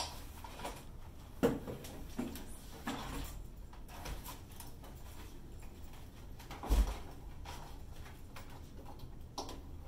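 Handling noise of unpacking a computer monitor from a cardboard box: a few scattered knocks and rustles, then a single deep thump about seven seconds in as the monitor is set down on the table.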